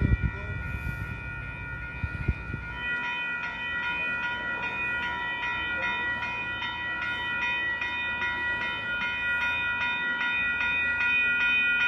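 Railroad crossing signal bell ringing steadily at a crossing where a train is stopped, about two to three strikes a second over a sustained ringing chord. A low rumble with knocks sits under it for the first few seconds.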